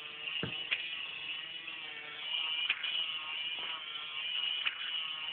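Battery motor and plastic gears of a K'Nex bug model running, a steady whir with a few sharp plastic clicks as the cam drives the legs.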